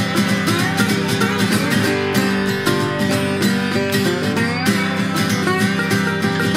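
Acoustic guitar duet: a sunburst flat-top acoustic guitar and a metal-bodied resonator guitar playing a folk-blues tune together, with some notes gliding in pitch.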